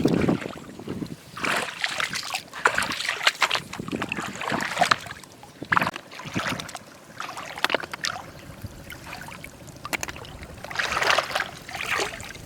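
Shallow water splashing and trickling in irregular bursts, with a few sharp clicks.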